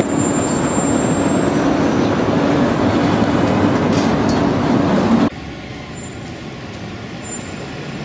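Loud, steady rumble of a subway train at a station entrance, with a low hum running through it. It cuts off abruptly about five seconds in, leaving quieter street traffic.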